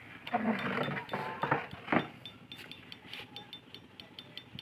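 Fishing reel clicking in a quick run of light ticks, several a second, through the second half while a hooked fish is being played. Rustling and handling noise with a sharp knock about two seconds in come before it.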